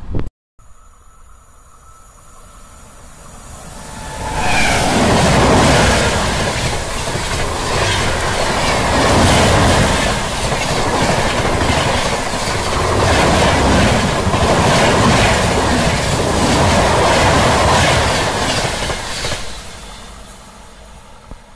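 Indian Railways express, hauled by a WAP-7 electric locomotive, passing at speed. It rises over a few seconds, then for about fifteen seconds there is a loud, rhythmic clatter of wheels over rail joints, fading as the train draws away near the end.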